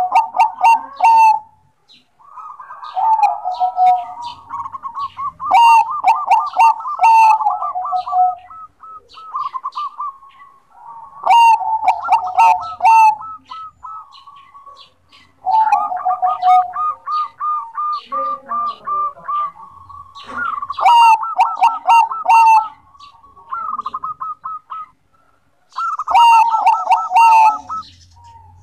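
Bangkok-type zebra dove (perkutut) singing vigorously: repeated phrases of quick, rippling staccato coos, each a second or two long, with short pauses between them. Short high clicks mark the start of several phrases.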